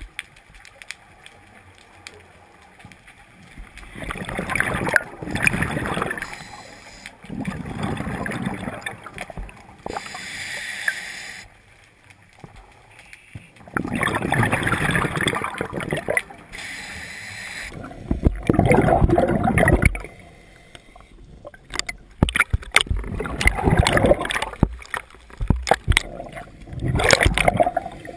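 Scuba breathing underwater through a regulator: hissing inhalations alternate with bubbling, gurgling exhalations, several breaths in a row.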